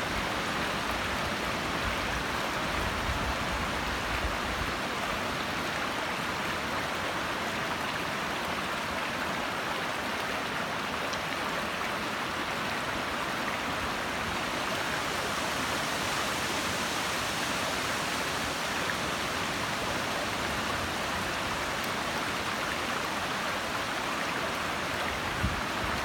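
Shallow brook babbling over rocks: a steady, even rush of running water.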